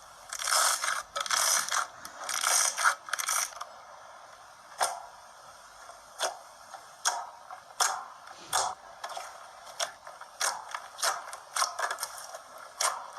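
Slime being pressed and squeezed by hand, giving dense runs of crackling clicks for the first few seconds, then scattered single pops and clicks.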